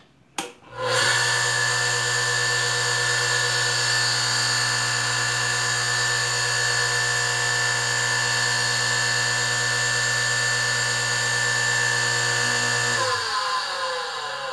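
Industrial sewing machine electric motor switched on with a click, running up and then running steadily with a hum and a high whine. About 13 seconds in it is switched off and winds down, its pitch falling while it keeps hissing as it coasts: the sign of worn ball bearings, the lower one worst.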